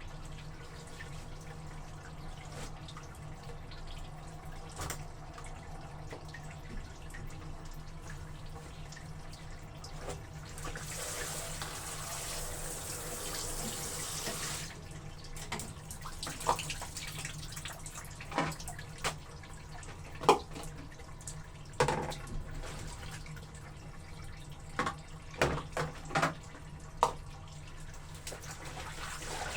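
Water and wet clothes during hand laundry: dripping and sloshing, a tap running for about three seconds midway, then a series of sharp splashes or knocks near the end.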